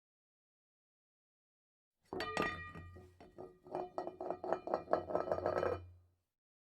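A quick series of clinks and light strikes with a lingering ringing tone, over a low steady hum. It starts abruptly about two seconds in and dies away shortly before the end.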